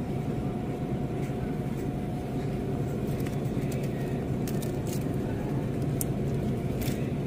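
Steady mechanical hum of supermarket refrigeration and ventilation machinery, with a faint steady whine over it and a few faint ticks.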